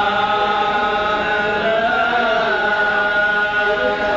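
Male hadrah singers chanting a drawn-out devotional line, with long held notes that bend slowly in pitch; no frame drums are struck.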